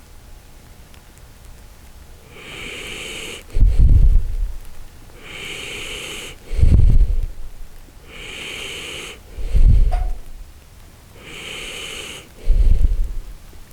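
Shiba Inu snoring in deep sleep: four breaths about three seconds apart, each a soft hissing breath followed by a loud, low snore.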